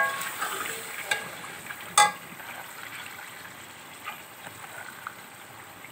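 Chicken and peas frying in masala in a metal pot with a soft steady sizzle, stirred with a steel ladle that clinks against the pot a few times, loudest about two seconds in.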